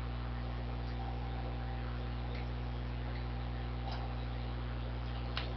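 Steady low electrical hum with hiss from the recording setup, and a couple of faint clicks about four and five seconds in.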